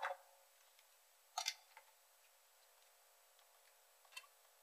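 Near silence with two short clicks, a sharper one about a second and a half in and a fainter one near the end.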